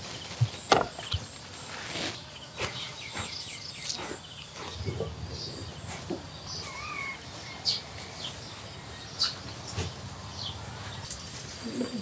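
Outdoor ambience: scattered light knocks and clicks, with brief faint high bird chirps and one short gliding chirp about seven seconds in.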